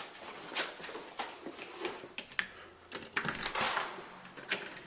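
Irregular light clicks and knocks with some rustling, a sharper click about two and a half seconds in and a cluster a little later: a person walking through the house with a handheld camera on the way to the garage.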